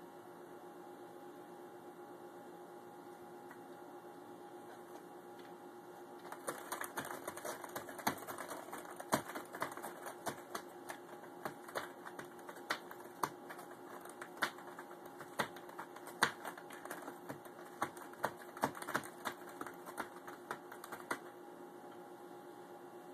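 A cat worrying at a corrugated cardboard scratcher with catnip on it, the cardboard crackling and clicking irregularly; the crackling starts about six seconds in and stops about two seconds before the end. A faint steady hum runs underneath.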